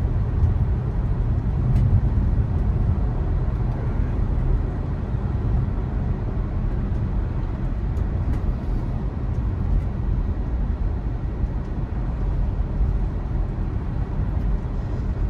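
Steady low road and tyre rumble heard inside the cabin of a Tesla Model 3 electric car driving along, with no engine note.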